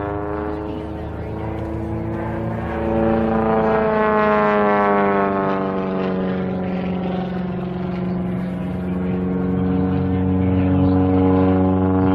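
Zlin 50LX aerobatic plane's piston engine and propeller droning overhead through a looping manoeuvre. Its pitch climbs about three seconds in, then eases back down as power and distance change.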